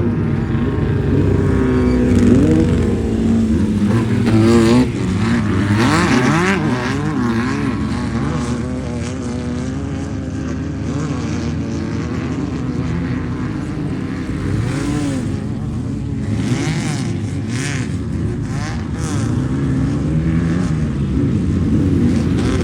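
Off-road race car engines revving and running, several at once, their pitch climbing and dropping repeatedly as they rev and pass; louder in the first few seconds and again near the end.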